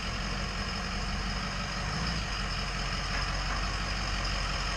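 Ford 6.0L Power Stroke V8 turbo-diesel in a Super Duty pickup, idling steadily.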